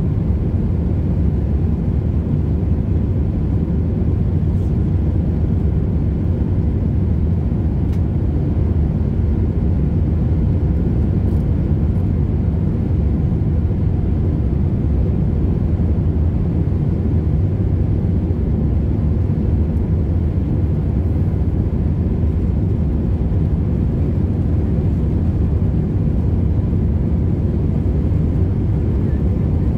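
Jet airliner cabin noise in flight: a steady, loud low rumble of the engines and airflow, heard from inside the cabin at a window seat over the wing.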